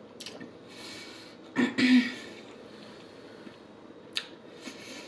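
Close-miked mouth sounds of a person chewing fatty red pork: scattered wet clicks and smacks. About a second and a half in comes a short, loud throat sound, a hum or throat clearing.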